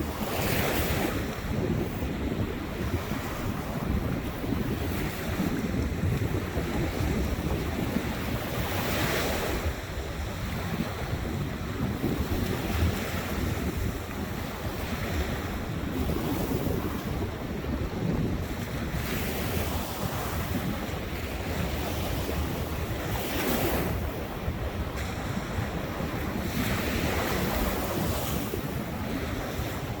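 Ocean surf: waves breaking every few seconds over a steady wash of water, with wind buffeting the microphone as a low rumble.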